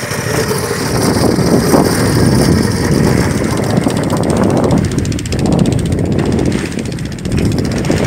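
Small fishing boat's engine running steadily, with water rushing and splashing along the hull.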